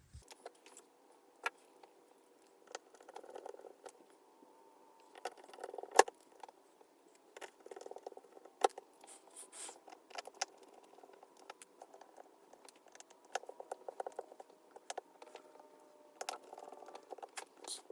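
Scattered small clicks, taps and light scraping from hands handling parts and cables inside an open MacBook Pro during reassembly, with a sharper click about six seconds in.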